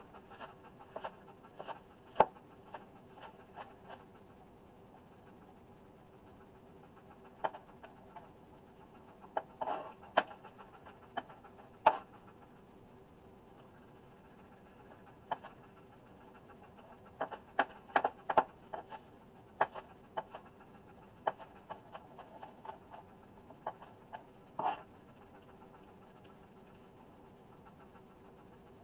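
A kitchen knife chopping green onions on a plastic cutting board: sharp taps of the blade striking the board, in runs of quick cuts with pauses between them.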